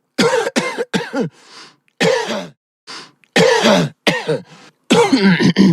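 A person coughing over and over: about ten short coughs in quick clusters, several of them voiced and dropping in pitch.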